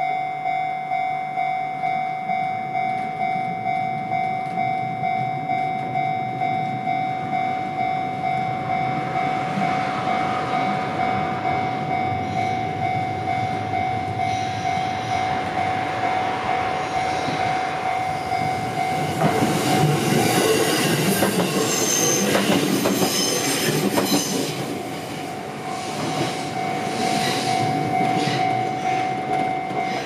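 Japanese level-crossing alarm ringing its repeated electronic tone about twice a second while an electric train approaches and passes through the crossing. The train's wheels clatter over the rail joints for about five seconds, two-thirds of the way in, drowning out the alarm, which then rings on alone as the train pulls away.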